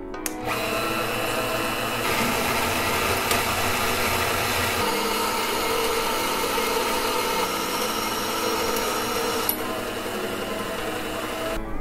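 Vertical band saw running, its blade cutting through a 3/4-inch steel pipe nipple with a steady grinding hiss. The cutting sound thins about two seconds before it stops.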